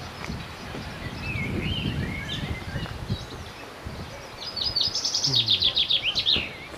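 Songbird singing: a few warbling chirps, then a loud, rapid trill falling in pitch over about two seconds near the end. A low rumble runs beneath the first half.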